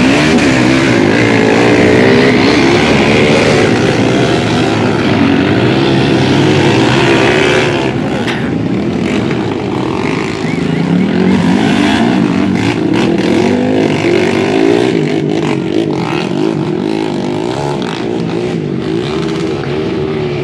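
A pack of enduro motorcycle engines revving and accelerating together, many engine notes rising and falling at once. The sound drops somewhat after about eight seconds as the bikes draw away.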